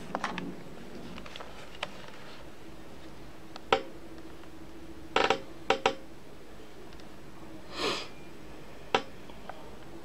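Scattered sharp clicks and light knocks of small hard objects, several in quick succession about five seconds in, and a short soft swish about eight seconds in.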